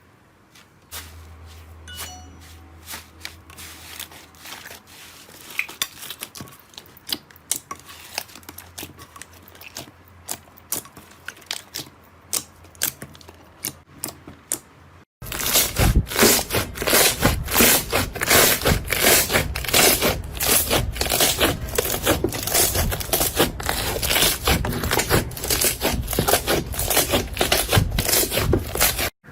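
Slime being squished and pressed, making quick sticky clicks and crackles. About halfway through it cuts to a louder, denser run of crackling.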